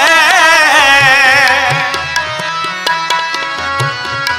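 Gurbani kirtan: male voices holding a long, wavering ornamented note over a steady harmonium drone and tabla. The singing stops about halfway through, and the harmonium and tabla strokes play on alone.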